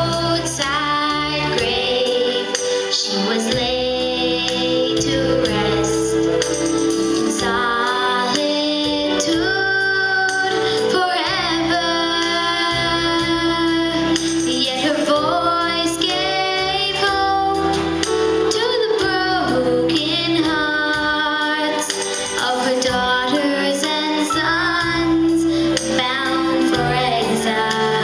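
A girl singing a solo into a microphone over musical accompaniment with a steady beat.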